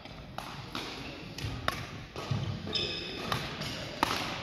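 Badminton rackets striking shuttlecocks in an echoing sports hall: a string of sharp hits from several courts, the loudest about four seconds in. Brief high squeaks of court shoes on the wooden floor come a little before that.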